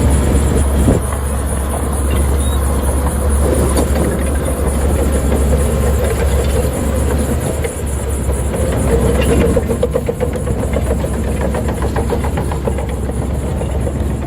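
Heavy earthmoving machinery running with a steady, deep engine rumble. About nine seconds in there is a stretch of rapid mechanical clatter.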